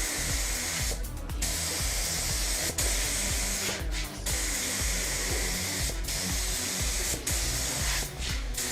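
Pneumatic paint spray gun hissing in passes, with short pauses between strokes every second or two, over background music.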